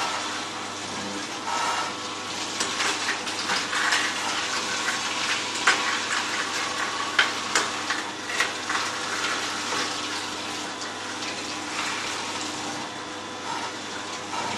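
Two slow juicers crushing carrots: an all-stainless-steel Angel twin-gear juicer and an Omega VRT 350 single-auger vertical juicer. They make a steady grinding noise with sharp cracks of carrot pieces snapping, several of them around the middle.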